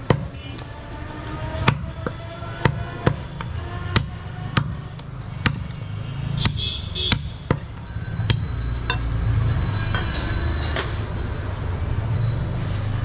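Heavy butcher's cleaver chopping goat meat and bone on a wooden log block: a run of sharp chops, about two a second, that stops about seven seconds in. After that only a low steady rumble remains.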